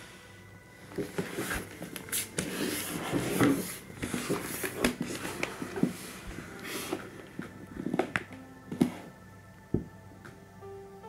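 Handling noise: paper rustling with a string of irregular clicks, taps and knocks as a phone is moved about and set down on a paper flyer. It settles down in the last couple of seconds.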